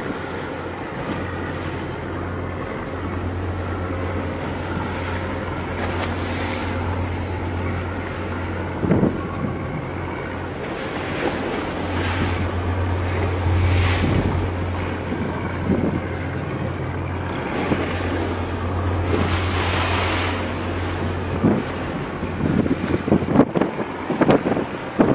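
A boat's engine running with a steady low hum, under wind buffeting the microphone and waves washing at sea. Gusts swell now and then and grow choppier near the end.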